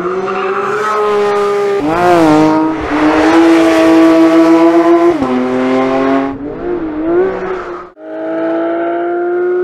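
Porsche 992 GT3's naturally aspirated 4.0-litre flat-six running at high revs on track, its note dipping and recovering briefly twice. After a short break near the end it comes back at steady high revs, slowly climbing.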